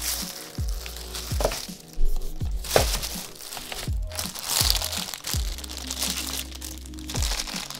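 Background music with deep bass kicks that slide down in pitch over a sustained bass line. Crinkling and rustling of packaging runs over it.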